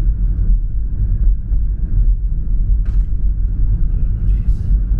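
A loud, low rumble, uneven in level, with a short tick about three seconds in.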